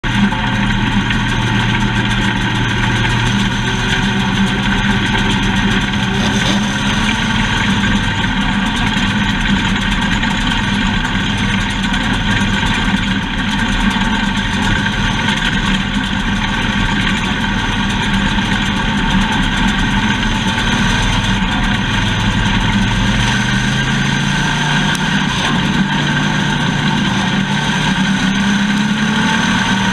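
Race car engine running steadily, its pitch climbing over the last several seconds.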